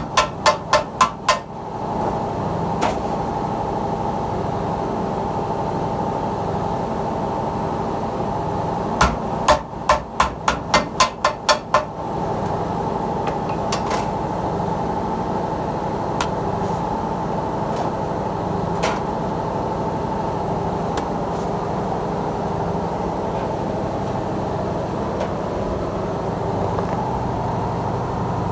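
Wooden mallet striking thin sheet steel laid over a steel beam, folding the edge of a sheet-metal tray: a quick run of taps at the start, another run of about nine strikes a few seconds later, then a few single knocks. A steady mechanical hum runs underneath.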